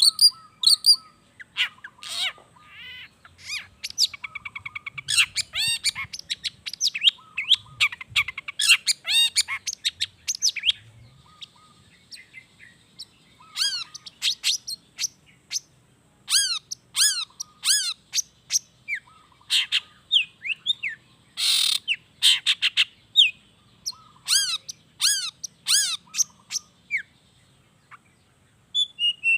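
Long-tailed shrike (cendet) singing a varied, rapid song of chirps, fast trills and down-slurred whistles, broken by short pauses, with one harsh rasping note about two-thirds of the way through.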